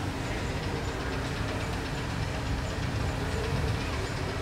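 Steady low rumble of an engine or machinery running, with a faint high tick repeating about two or three times a second.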